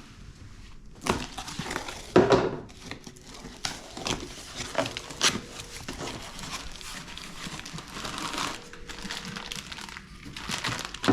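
Packaging being pulled open and handled: irregular crinkling and rustling, with a few louder sharp crackles.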